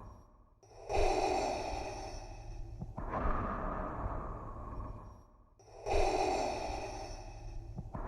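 Darth Vader's mechanical respirator breathing, the Star Wars sound effect made from breathing through a scuba regulator. It runs through two full slow in-and-out breath cycles of about five seconds each, with a brief pause before each cycle.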